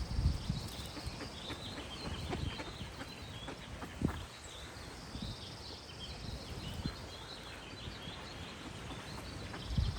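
Small songbirds chirping and twittering, with a high buzzy trill coming back three times, and a few soft low thuds.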